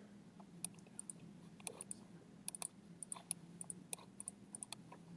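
Computer mouse buttons clicking in a quick, irregular series of small clicks, some in pairs, over a faint steady hum.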